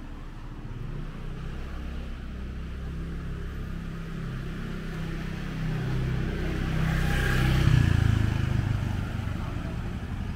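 Street traffic: a motor vehicle passes close by. Its engine hum and tyre noise grow louder to a peak about eight seconds in, then fade.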